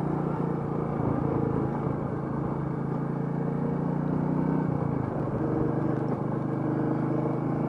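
Royal Enfield Meteor 350's single-cylinder engine running steadily under way, heard from the bike, its note shifting briefly about five seconds in.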